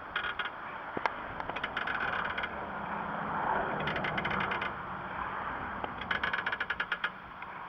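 A jack being worked to lift the SUV: short bursts of rapid ratchet-like clicking, repeating about every two seconds, over a steady background rumble.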